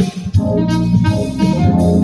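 A band playing jazz-style music, with a saxophone lead over guitar and drums.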